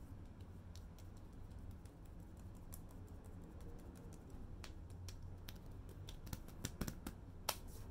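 Faint, scattered clicks and taps of fingers patting and pressing a skincare essence into the face and neck, growing more frequent in the second half. A low steady hum runs underneath.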